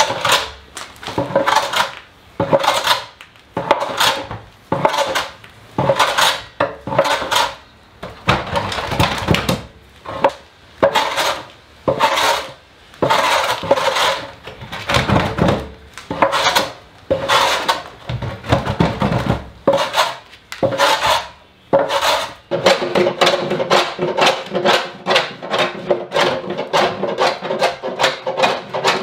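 Hammer blows ringing on the iron hoops of a hand-made oak barrel, sharp metallic strikes about once or twice a second. About three quarters of the way in they give way to quicker, lighter tapping and scraping at the barrel's rim.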